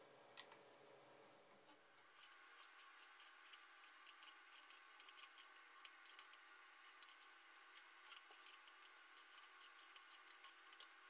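Faint, quick taps of a kitchen knife slicing boiled pork offal on a wooden chopping board, several taps a second, starting about two seconds in.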